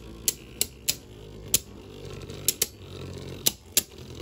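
Two Beyblade Burst DB spinning tops whirring in a clear plastic stadium and clashing, with about eight sharp clacks at irregular intervals over a low steady whir.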